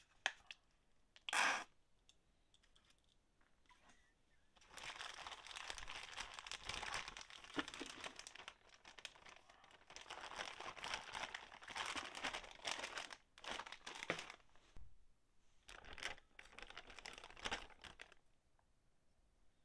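Plastic freezer bag crinkling and rustling as hands knead brass scale parts in tomato ketchup to lift the tarnish, in several long stretches with short pauses. A short loud burst comes about a second in.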